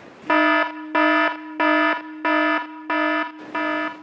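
An alarm sounding in evenly repeated buzzing beeps, about three every two seconds, each a harsh pitched tone.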